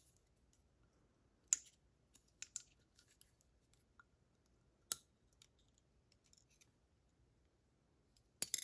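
Small sharp metallic clicks and taps of tweezers, pins and springs being handled while a pin-tumbler lock cylinder is disassembled; a handful of separate clicks, the loudest about a second and a half in, around five seconds in and near the end.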